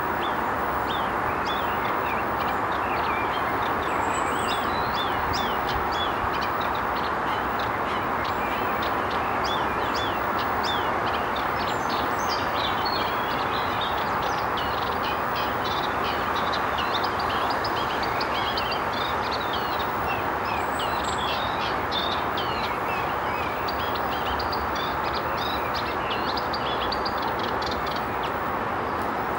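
Small birds chirping and twittering in many short, quick notes, over a steady rushing background noise.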